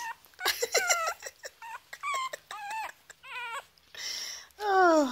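Dog whimpering: a string of short, high-pitched whimpers, several a second, each wavering up and down in pitch. Near the end comes a louder, longer whine that slides down in pitch.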